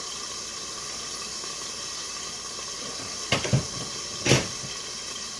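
Hamburger frying in hot butter in a pan, a steady sizzle. There are two louder bursts a little past halfway, about a second apart.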